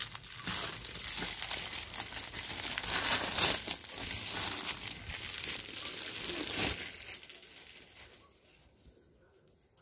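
Clear plastic wrapping being crumpled and pulled off a laptop table: dense crinkling and rustling for about seven seconds, loudest near the middle, then fading out.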